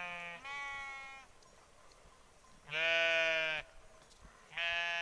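Sheep and goats bleating: four long, steady-pitched bleats. The first is already under way at the start, the loudest comes about three seconds in, and another begins near the end.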